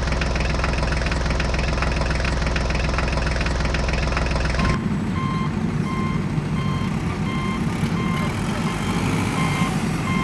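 A heavy vehicle's diesel engine running steadily, then a cut to another rumbling engine with a reversing alarm beeping about one and a half times a second.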